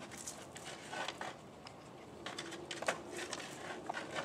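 Light scratching and rustling from a Staffordshire bull terrier pup's paws and claws against a wooden fence and the gravel beneath, with a few sharper clicks, the loudest about three seconds in.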